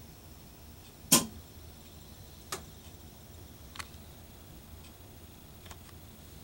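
A few sharp clicks over a faint low room hum: one loud click about a second in, then three fainter ones spread over the following seconds.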